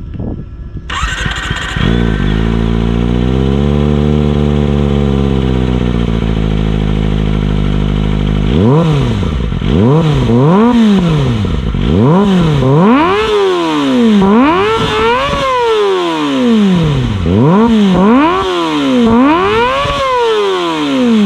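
Kawasaki ZX-25R's 250 cc inline-four, fitted with a long (470 mm) SC Project exhaust muffler, starting up about a second in and idling with a slight rise and fall in pitch. From about eight seconds in it is revved again and again in quick throttle blips, each a sharp rise and fall in pitch.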